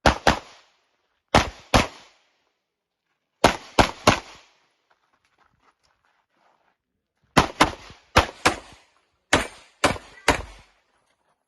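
Glock pistol shots fired in quick pairs, about a third of a second apart, with short breaks between the pairs and a longer pause of about three seconds in the middle.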